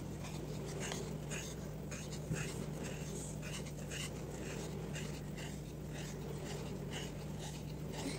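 Wool yarn being wound round a small piece of cardboard for a tassel. Each turn gives a soft, faint rasp of yarn on card, about two a second, over a steady low hum.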